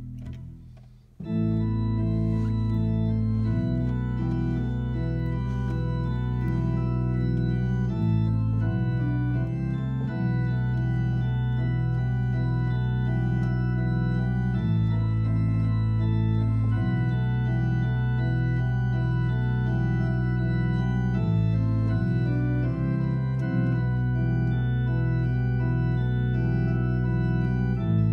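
Church organ playing loud sustained chords: a softer held chord dies away and about a second in a full chord enters, with deep held bass notes under a repeating figure of shorter notes in the middle range, the harmony shifting every few seconds.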